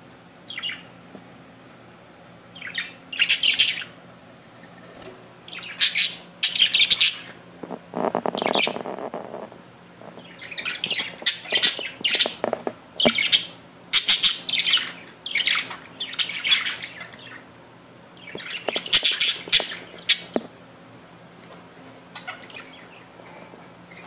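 Caged budgerigars chattering and squawking in bursts of quick, sharp chirps, with short quiet gaps between the bursts. There is a lower, rougher call about eight seconds in.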